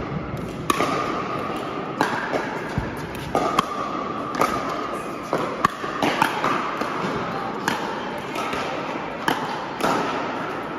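Pickleball rally: paddles striking a plastic pickleball, about ten sharp pops at irregular intervals, with the ball's bounces, in a large indoor hall.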